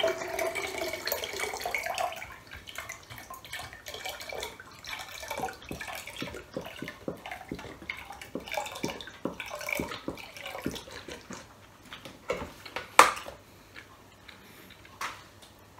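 Pineapple juice poured from a carton into a large glass mug. It comes as a full steady stream for the first couple of seconds, then as a long run of short, irregular glugs and splashes. Near the end there is one sharp knock.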